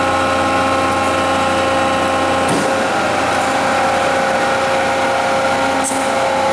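Arter horizontal spindle rotary surface grinder running: a steady machine hum from the wheel spindle and hydraulics, holding several fixed tones, with a couple of faint clicks.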